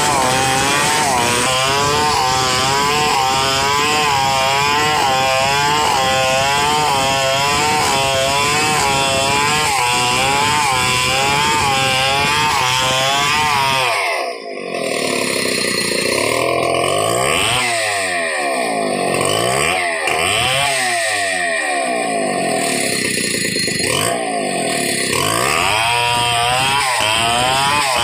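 Stihl 070 two-stroke chainsaw running at full throttle, ripping a log lengthwise into planks, its engine pitch wavering up and down in a steady rhythm under the load. About halfway through the sound briefly dips, then the cutting carries on.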